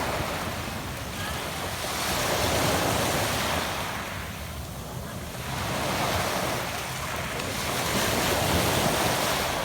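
Adriatic sea waves breaking and washing up a pebble shore, the surf swelling and ebbing about every three seconds.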